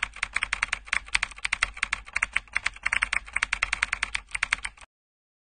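Keyboard typing: a fast, steady run of key clicks that stops suddenly near the end. It matches text being typed out letter by letter on screen.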